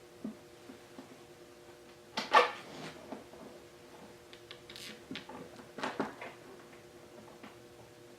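Hand work on a motorcycle windshield and fairing: a loud short clatter about two seconds in and another around six seconds, with light clicks between, over a faint steady hum.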